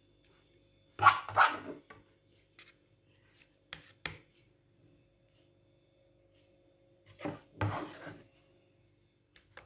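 A dog barking in short pairs, about a second in and again near the end. In between, a spoon taps twice as meat sauce is dropped onto lasagna sheets.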